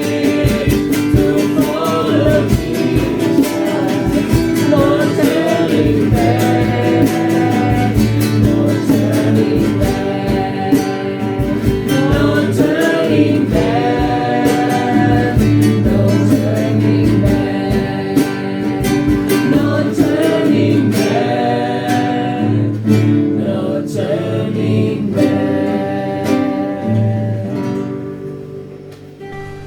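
Christian worship song: singing over guitar accompaniment, fading out near the end.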